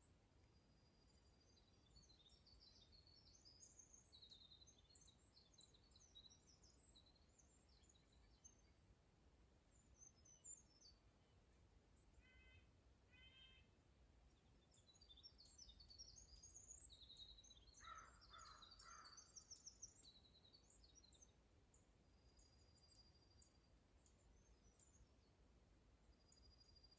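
Faint chorus of early-spring woodland songbirds, winter wren, brown creeper and dark-eyed junco among them: long, fast, tumbling high songs in two busy stretches, thin high whistled notes here and there, and a few lower call notes near the middle.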